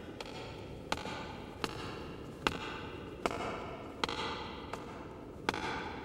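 Slow, even footsteps on a concrete tunnel floor, about one every three-quarters of a second, seven in all. Each step rings with a short echo off the tunnel walls.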